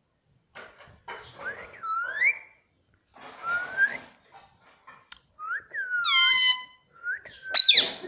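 Indian ringneck parakeet vocalising: scratchy, speech-like chatter mixed with whistled glides, several of them sliding up or down in pitch. A sharp, loud call comes near the end.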